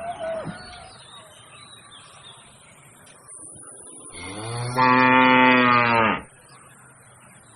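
Bull mooing: the end of one short call at the start, then a long, low, loud moo that swells from about four seconds in and cuts off abruptly near six seconds.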